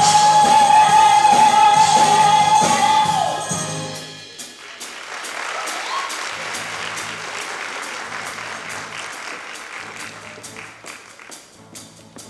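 A woman singer holds a long final note over the pit band, and the song ends about three and a half seconds in. Audience applause follows, thinning to scattered single claps near the end.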